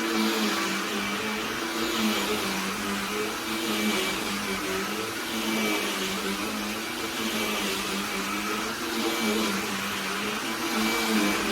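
Black+Decker Dustbuster cordless handheld vacuum running: a steady motor hum with a rushing hiss of airflow, its pitch wavering slightly every second or two.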